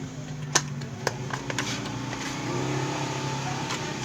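A few sharp clicks and taps of small objects being handled, the first the loudest, over a steady low hum.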